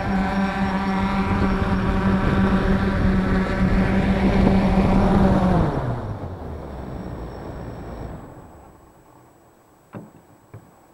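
F450 quadcopter's brushless motors and propellers running with a steady pitched hum, then spinning down in pitch about six seconds in and dying away by about nine seconds. A couple of faint clicks follow near the end.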